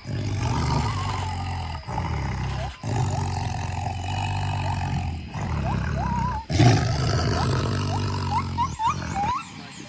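Tiger growling deeply in long runs, broken by several short pauses, with short rising whistled calls over it now and then.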